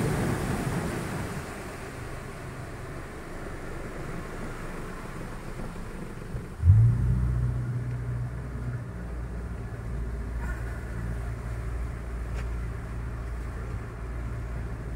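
A boat engine starts about six and a half seconds in: a sharp burst as it catches, the pitch rising briefly before it settles into steady running. A rushing noise fades away over the first two seconds before that.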